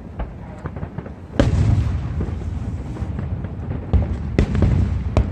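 Aerial fireworks shells bursting: a sharp bang, then a big one about a second and a half in followed by a low rolling rumble, and several more bangs near the end, strong enough to rattle the phone's microphone.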